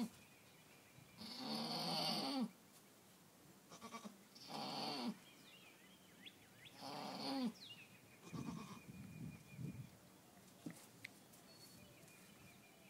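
Nubian doe in labor crying out with three long, strained bleats about two and a half seconds apart, then a few fainter, shorter sounds as she keeps pushing.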